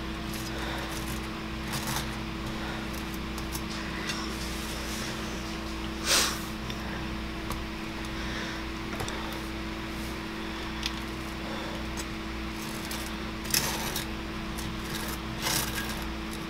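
Table knife scraping soft butter across toasted English muffins, a series of short scrapes with a few clicks of the knife against the plate and a plastic tub. A steady low hum runs underneath.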